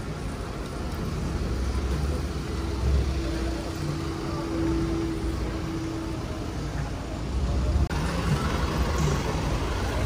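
City street traffic noise: a steady low rumble of road vehicles and a bus engine running close by, with a steady hum through the middle.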